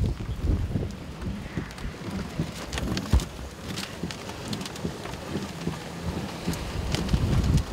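Rain hitting a moving car, heard from inside the cabin as a steady patter with scattered sharp drop ticks. Gusty, irregular low rumbling wind buffets the car under it, with one sharp knock about three seconds in.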